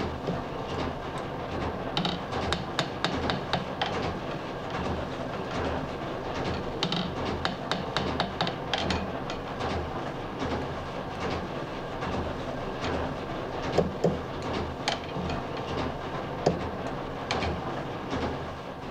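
Small hammer striking a steel scissor on a bench block in quick runs of light taps and a few single harder blows, as the scissor is straightened (abgerichtet) so that its blades close properly. Under it runs a steady pulsing machine rumble.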